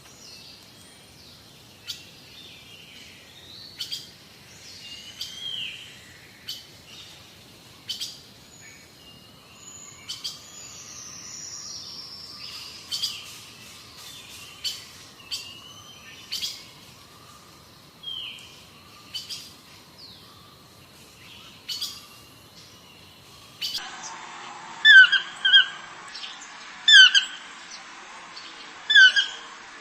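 Wild birds chirping and calling: a mix of short, sharp chirps and whistled notes. Near the end a different recording starts, with a louder bird call of two quick notes repeated about every two seconds.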